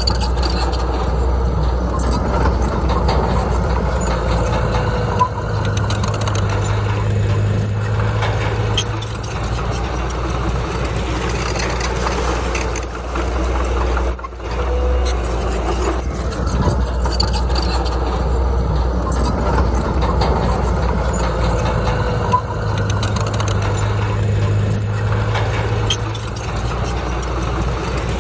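Diesel engine of heavy earthmoving machinery running steadily under load. Its note strengthens for a few seconds twice, as the machine works harder.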